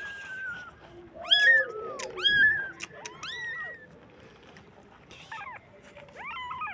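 Young kittens mewing: a string of high-pitched mews, each rising and falling in pitch, with two calling at once in places.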